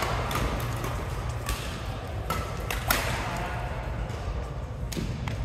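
Badminton rackets hitting a shuttlecock in a doubles rally in a large sports hall: sharp hits about half a second to a second apart, the loudest about three seconds in, then fewer hits near the end. A steady low hum runs underneath.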